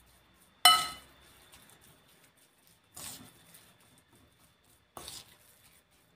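A spoon clinking against a porcelain bowl while stirring a thick tofu mixture. There are about four separate clinks: the first, under a second in, is the loudest and rings on briefly, fainter ones follow, and another ringing clink comes at the very end.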